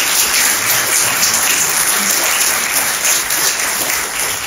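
Audience applauding: steady, dense clapping that begins to die down near the end.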